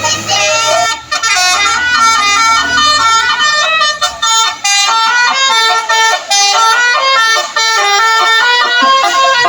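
Bus telolet horn, a set of musical air horns, playing a fast melody of short notes that step up and down. A low hum lies under the first three seconds.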